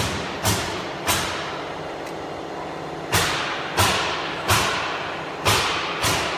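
A series of sharp knocks, about seven, mostly spaced well under a second apart with a pause of about two seconds after the first two, each ringing off briefly, over a steady machine hum.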